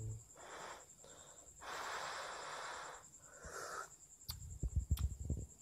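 A person tasting hot seblak broth, blowing and slurping in several breathy bursts; the longest runs about a second and a half, starting near the middle. Soft low knocks near the end.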